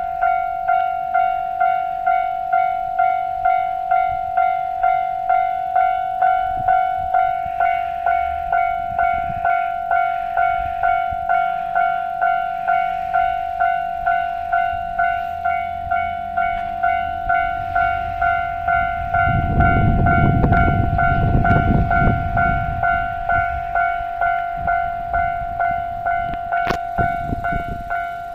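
Japanese level-crossing warning bell ringing steadily: one clanging tone repeating about one and a half times a second. From about nineteen seconds in, a train rumbles past, swelling and fading over a few seconds and louder than the bell.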